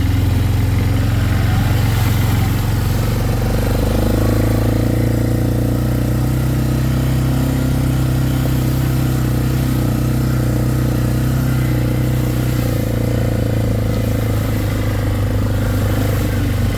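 Vehicle engine running at a steady speed while driving along, with a constant low drone and little change in pitch.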